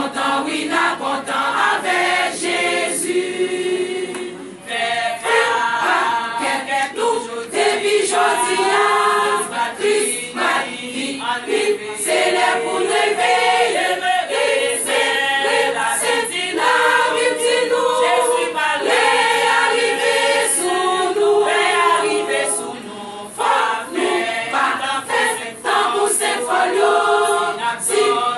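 A women's church choir singing together.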